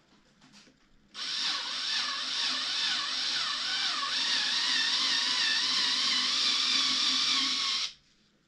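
Cordless drill with a milling bit running under load, grinding into cured epoxy resin to open out air-bubble flaws. It starts about a second in and stops about a second before the end, with a whine whose pitch wavers as the bit bites.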